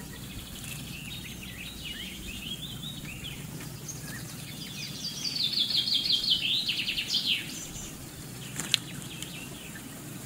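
Wild songbirds calling and singing over a steady low background hum: scattered chirps in the first few seconds, then a fast trill of about a dozen ringing notes lasting about two seconds in the middle. A single sharp click near the end.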